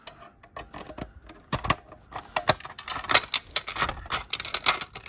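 A key rattling and clicking in the lock of a fire alarm pull station as it is worked open: a few scattered metal clicks, then from about a second and a half in a quick, irregular run of clicks and jangling.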